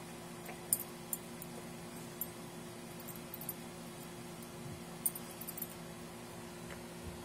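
Metal ID tags on a dog's collar clinking in scattered light jingles as the mastiff puppy moves his head over a piece of raw fish, with a cluster of clinks about five seconds in, over a steady low hum.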